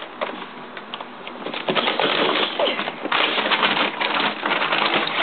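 Plastic dog-food bag crinkling and rustling as a dachshund moves about inside it, the crackling getting louder about a second and a half in.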